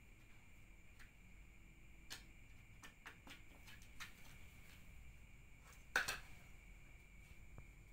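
A cat's paws and claws tapping and scraping at the plastic base of a standing fan: scattered faint clicks, with one sharper knock about six seconds in as the cat lunges at the base.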